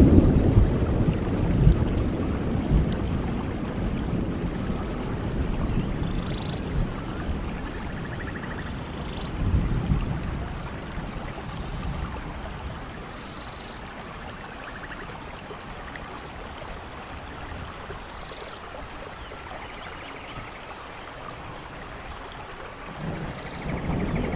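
Steady rain with rolling thunder: a low rumble dies away over the first few seconds, swells briefly about ten seconds in, and a new rumble builds near the end. A few faint, short, high chirps sound over the rain.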